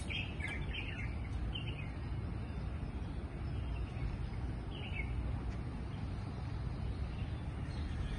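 Birds chirping in short calls, a cluster in the first two seconds and another about five seconds in, over a steady low outdoor rumble.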